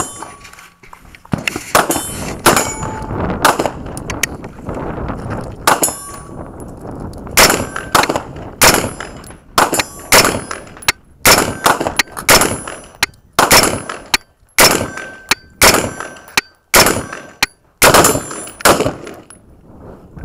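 AR-15 rifle firing a string of shots: a few spaced single shots in the first six seconds, then a steady run of about two shots a second until shortly before the end, some with a short metallic ring after them.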